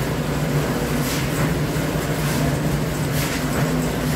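Portable concrete mixer's engine running steadily with a low, even hum, while faint short noises recur about once a second.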